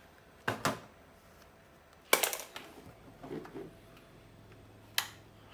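A few sharp clicks and knocks from a plastic battery lamp and its cell holder being handled: two close together about half a second in, the loudest about two seconds in, and one more about five seconds in.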